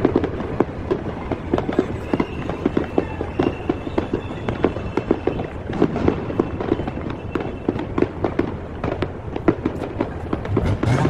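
Fireworks going off in a dense, irregular crackle of sharp pops and bangs, several a second.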